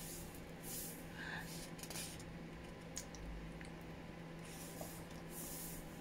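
Thick paper pages of a paperback book being turned by hand: a few soft paper swishes and rustles, with a couple of faint ticks.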